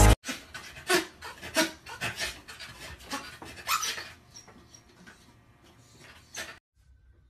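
Corgi panting in a run of quick, breathy strokes, loudest over the first four seconds, then fading.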